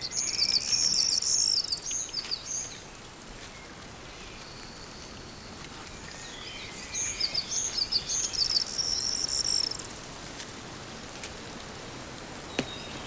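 A small songbird singing twice, each time a run of quick, high, repeated notes, over a steady background hiss of woodland ambience. A single short tap sounds near the end.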